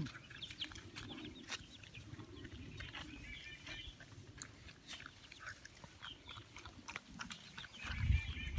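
Chickens feeding: soft low clucking with small high peeps and many sharp clicks of beaks pecking at the feed. A louder low sound starts near the end.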